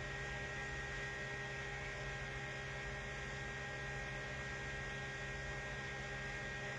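Steady electrical hum with several constant tones over a faint hiss, unchanging throughout.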